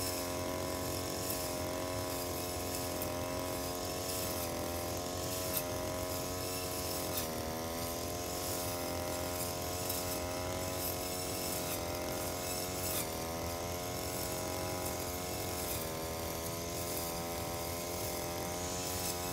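Petrol brush cutter engine running at high revs while cutting grass. The note sags briefly a few times as the head bites into thick growth, then picks back up, with a few sharp ticks from material striking the cutting head.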